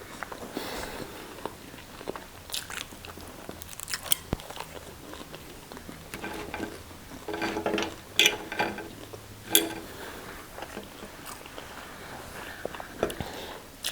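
Close-up eating sounds: chewing and biting into fries, sausage and salad, with scattered wet clicks and crunches and a few short louder bites about 8 and 9.5 seconds in.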